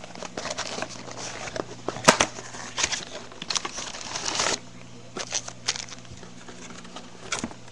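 Packaging of a baseball card blaster box being torn open and crinkled by hand: a run of crackles and clicks, with a longer rip ending about four and a half seconds in, then lighter handling clicks.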